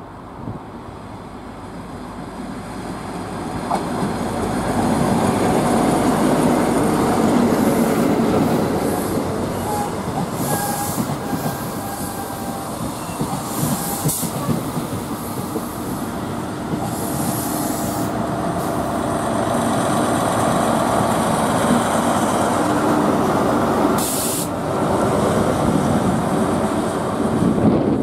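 A Class 43 HST (InterCity 125) diesel train running past close by: the power car's engine and the coaches' wheels on the rails make a steady rumble. It grows louder a few seconds in and stays loud, with some clickety-clack and wheel squeal.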